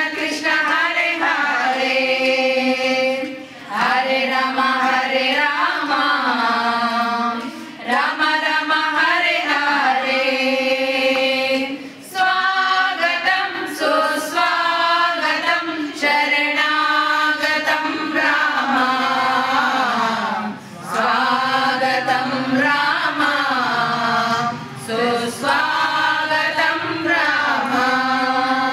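Group of women singing a devotional bhajan together in unison, with no instruments, in sung phrases of a few seconds each broken by short pauses for breath.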